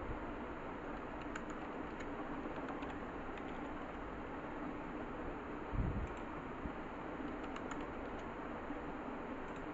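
Scattered light key clicks from typing on a computer keyboard, over a steady background hum and hiss, with one low thump about six seconds in.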